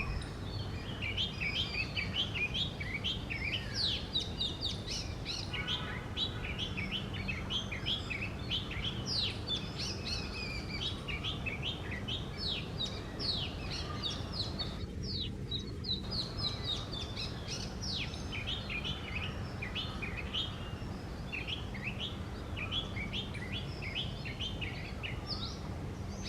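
Oriental magpie robin singing: a long run of quick, varied whistles and chirps, over a steady low hum.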